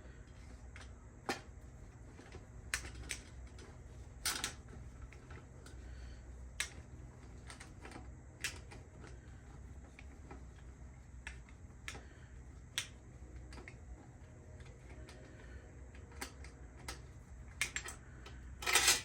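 Irregular sharp clicks and clinks of small metal bicycle parts and tools being handled as parts are taken off, with a louder clatter near the end.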